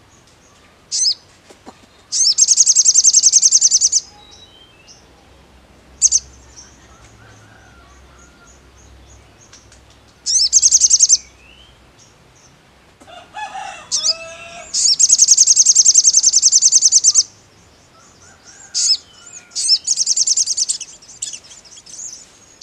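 Male olive-backed sunbird (sogon) singing: long, very fast high trills, repeated several times, with short sharp chirps between them.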